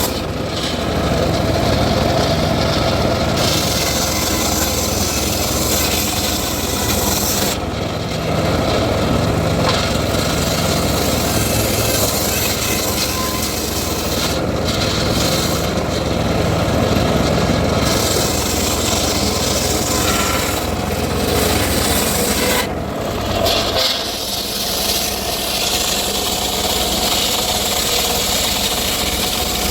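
Circular saw cutting through teak wood: a continuous loud rasping grind of the blade in the timber over the steady hum of the saw's motor, easing briefly a few times.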